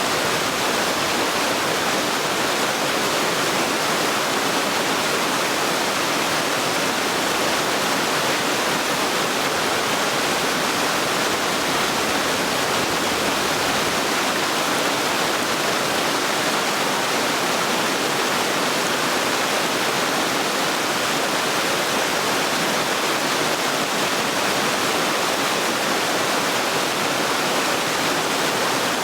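Waterfall: falling water crashing in a steady, unbroken rush.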